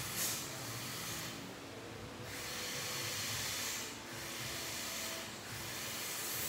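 Dental equipment hissing during root canal treatment, swelling and dipping in stretches of a second or two.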